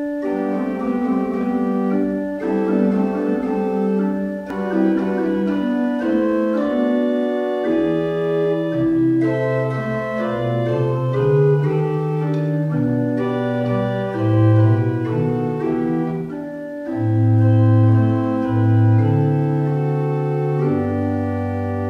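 Church organ playing slow sustained chords, with a lower pedal bass line joining about seven seconds in and a final chord held near the end.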